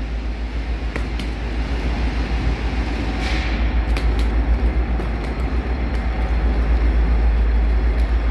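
Metra bilevel commuter train cars rolling along the platform: a steady low rumble with a few sharp wheel clicks and a brief hiss about three seconds in.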